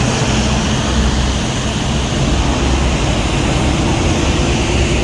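Steady rushing noise of wind and heavy rain on the microphone of a bicycle rider on a wet road, with a low rumble of wind buffeting.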